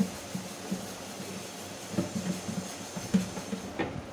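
Dishes being washed by hand in a stainless-steel sink: a pan is scrubbed and handled, giving an irregular clatter of short knocks, with a few louder knocks about two and three seconds in.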